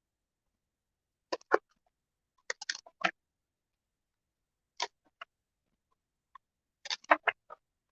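Brief clicks and taps of a paper guidebook being handled and its pages turned, in a few short clusters, the loudest about one and a half and seven seconds in.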